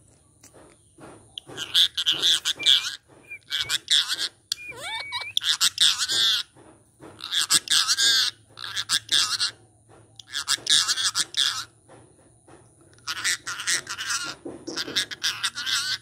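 Ringneck parakeet (rose-ringed parakeet) chattering and squawking in a string of short, harsh bursts, some with warbling pitch slides.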